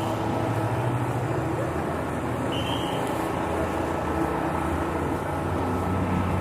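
Busy city street ambience: a steady hum of traffic mixed with crowd chatter, with a short high beep a little over two and a half seconds in.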